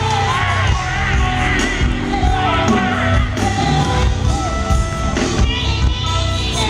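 Live R&B band performing, with a woman singing lead through a handheld microphone over keyboards and a strong bass line.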